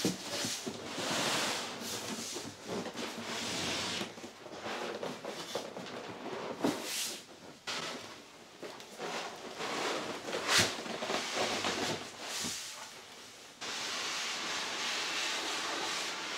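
Large cardboard packaging being handled and opened: rustling and scraping with a few sharp knocks, and a steadier rushing scrape in the last few seconds.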